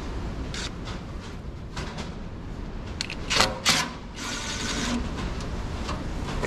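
Cordless impact driver running briefly on a side-panel bolt of an Oliver 660 tractor: two short bursts a little past halfway, then a run of just under a second.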